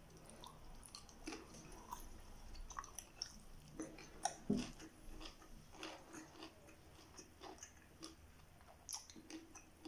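A man chewing food with his mouth closed: soft, irregular clicks and smacks of chewing, faint, with a few louder ones about halfway through and near the end.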